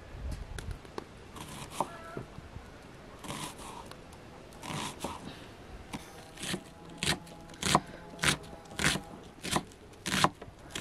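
A kitchen knife chopping diced onion on a thick wooden cutting board. There are a few scattered cuts, then a steady run of sharp, crunchy strokes about every half second from around halfway through.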